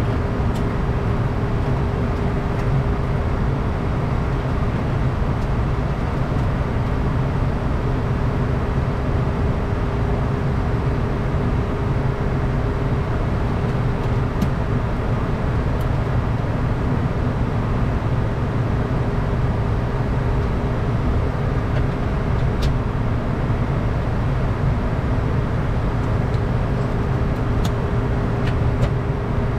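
Steady in-flight cockpit noise of a Bombardier Challenger 350 business jet: a dense low rumble of airflow and engines with a constant hum running through it, and a few faint ticks.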